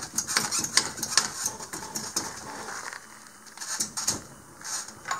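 Steel boat-trailer winch stand, its mounting bolts loosened, clanking and rattling in quick sharp metallic knocks as it is worked by hand to slide it back along the trailer tongue.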